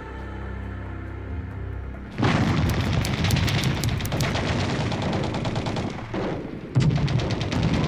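Background music, then from about two seconds in, rapid gunfire and booms like machine-gun fire in battle. The firing breaks off briefly near the end and starts again.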